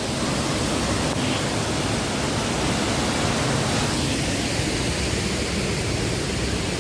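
Waterfall rushing, a steady, even sound of falling water.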